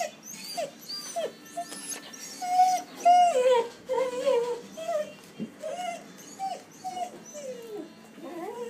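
Saluki whining and whimpering at a door, a long string of high whines that rise and fall in pitch, loudest about three seconds in: a dog anxious to be let out.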